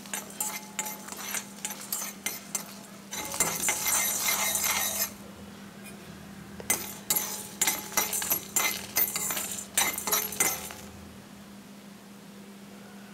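Metal spatula stirring dry urad dal and dried red chillies in a stainless steel kadai: rapid clinks and scrapes against the steel with the lentils rattling, densest about three to five seconds in. The stirring stops near the end.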